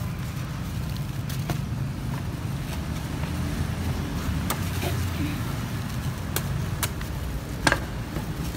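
Sharp clicks and cracks of a knife working into a durian's spiky husk and prising it open, several scattered strokes with the loudest crack near the end, over a steady low background rumble.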